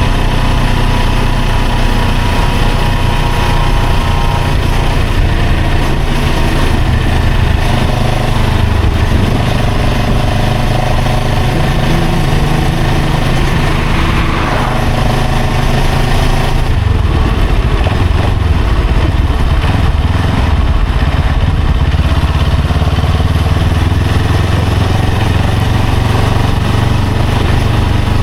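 A motor vehicle's engine running steadily while under way in traffic, with constant road and wind noise; the engine note shifts a little a few times.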